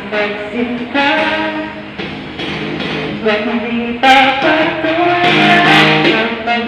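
A woman singing through a handheld Bluetooth karaoke microphone over a backing music track, her held notes getting louder about four seconds in.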